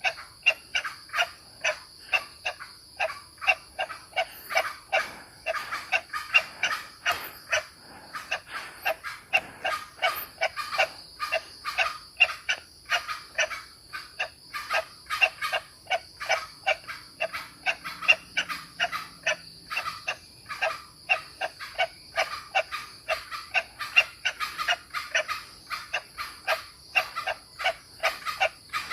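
An animal calling over and over in short, evenly spaced notes, about two to three a second, without a break. A steady high-pitched insect drone runs underneath.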